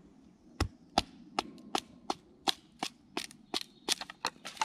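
Wooden mallet striking the spine of a knife set into the end of a hazel stick: a dozen or so sharp knocks, about three a second and quickening near the end, as the blade is driven down to split the stick lengthwise (batoning).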